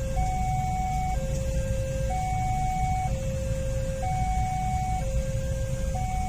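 Railway level-crossing warning alarm sounding a steady two-tone signal, a higher and a lower tone alternating about once a second, the warning that a train is approaching. Under it runs the low rumble of idling motorbike engines and traffic.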